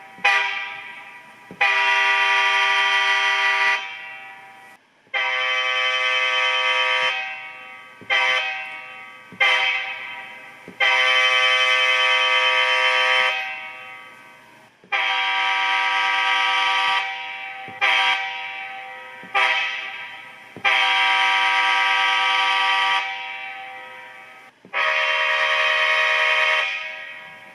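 Multi-chime diesel locomotive air horn sound played by a TCS WOWSound model-train sound decoder: a sequence of long blasts of about two seconds each, mixed with short toots, each dying away after release.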